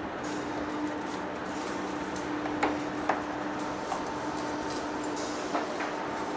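Heavy-duty face lathe running with a steady hum, broken by a few sharp metallic clanks: two about a second and a half to three seconds in, and another near the end.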